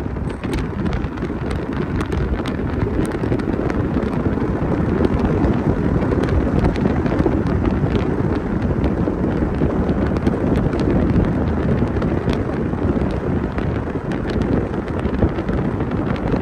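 Wind buffeting the microphone over a steady low rumble, with faint scattered ticks throughout.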